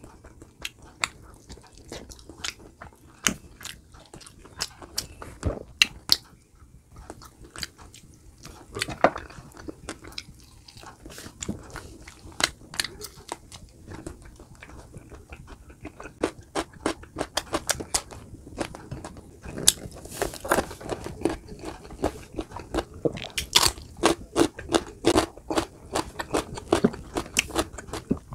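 A person eating close to the microphone: biting and chewing with crunches and wet mouth clicks, coming thicker and louder in the second half.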